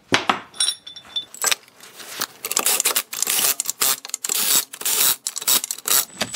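Metal tools and parts clinking, clattering and jangling against each other on a workbench, with a brief high metallic ring about a second in.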